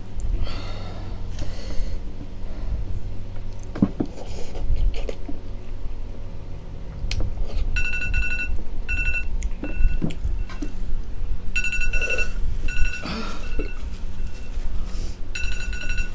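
A timer alarm beeping in repeated groups, each group a longer beep followed by shorter ones, starting about halfway through: the challenge's countdown timer going off. Before it, spoon scraping and scooping soft watermelon flesh.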